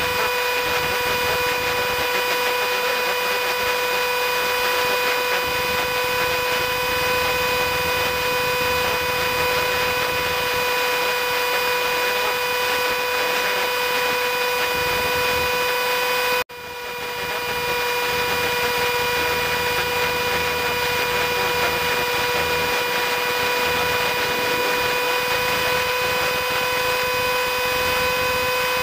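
Cessna 150's four-cylinder Continental O-200 engine and propeller droning steadily at cruise power, heard inside the cockpit as an even hum with a fixed pitch. The sound briefly cuts out about sixteen seconds in and comes straight back.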